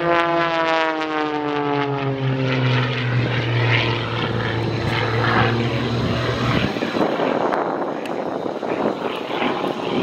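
Edge 540 aerobatic plane's Lycoming six-cylinder engine and propeller, passing and then climbing away. Its drone falls in pitch over the first few seconds, then holds a steady low note. About two thirds of the way through, the low note cuts off suddenly, leaving a rougher rushing noise.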